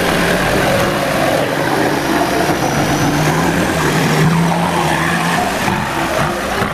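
Off-road 4x4 engine running steadily as the vehicle crawls through mud and water, with its pitch rising a little about four seconds in.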